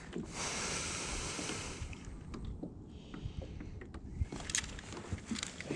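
Wind on the microphone and water lapping around a kayak, with a gust of hiss in the first couple of seconds and a few small knocks of handling gear later on.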